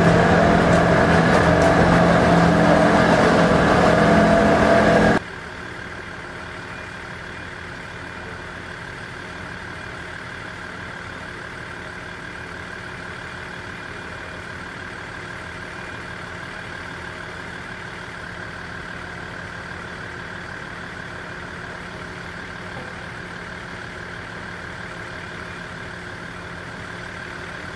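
Diesel commuter train unit idling while standing still: a loud, steady engine hum close up for about the first five seconds, then, after a sudden drop, a quieter steady idling hum.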